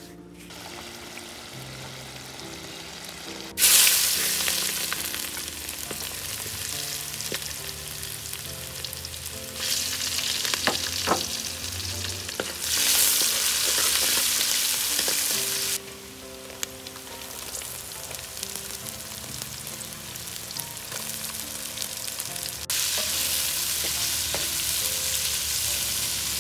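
Sliced garlic and green chillies sizzling in hot oil in a clay pot, stirred with a wooden spoon, with sliced onions in the pot by the end. The sizzle starts about four seconds in and grows louder and softer several times.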